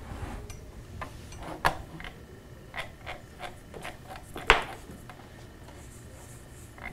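Dry-erase marker writing on a whiteboard: a run of short scratchy strokes and taps, with two sharper knocks, the louder about four and a half seconds in.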